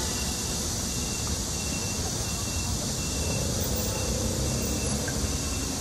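Steady wind rush and street noise while riding a two-wheeler, picked up by a phone mounted at the front, with a low fluttering rumble from wind on the microphone. A faint thin high whine runs through the first half.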